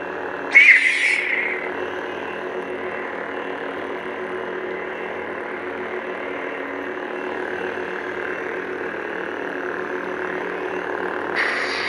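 Several lit lightsabers' sound boards humming together as a steady, layered drone with a slow pulse. About half a second in, a brief louder effect sound fades over about a second, and another starts near the end.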